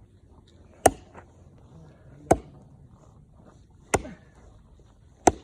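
Axe chopping wood: four hard strokes biting into the log, about one and a half seconds apart.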